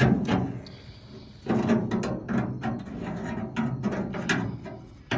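Hand ratchet wrench clicking in a run of quick, uneven strokes.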